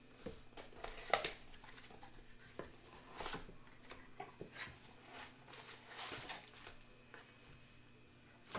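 Trading cards and a stack of foil card-pack wrappers being handled: a series of short, faint rustles, crinkles and light taps, the sharpest a little after one second in.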